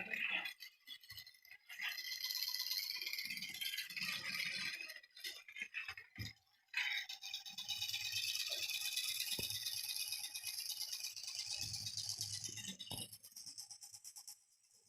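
Toy train rattling as it runs, with a steady tone under the rattle. The rattle breaks off briefly in the middle and dies away near the end.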